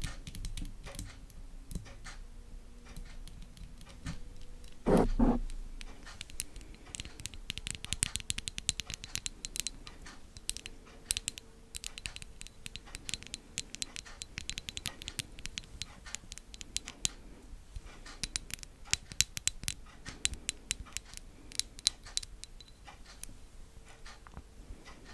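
Close-miked ASMR trigger sounds: rapid light tapping, clicking and scratching on small objects, with one louder thump about five seconds in.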